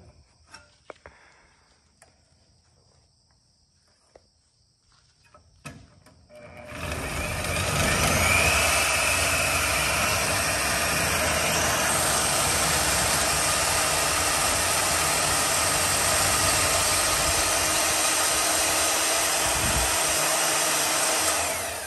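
Portable bandsaw cutting through a truck's exhaust pipe to take the tips off. After a few faint clicks, the saw starts about seven seconds in and runs at a steady, even pitch as the blade works through the pipe.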